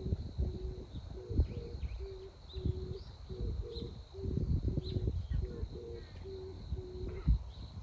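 A bird cooing in a run of short, low, evenly pitched notes, with wind rumbling on the microphone.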